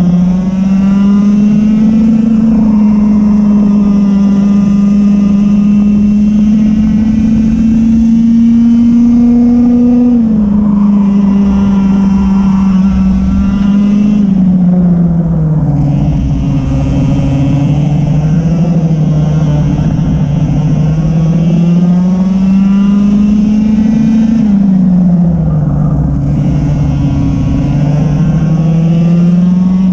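Racing kart engine heard onboard at speed through a lap. Its pitch climbs and holds high on the straights, then drops sharply as the throttle is lifted for corners, about ten, fifteen and twenty-five seconds in, before rising again.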